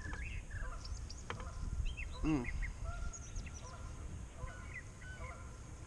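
Small birds chirping on and off over a steady low rumble, with one short honk-like call about two seconds in.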